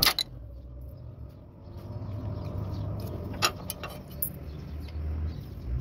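A sharp knock at the start, then a few light metallic clicks and taps of hand tools on an engine's exposed rocker arms during tappet (valve clearance) adjustment, over a low steady rumble.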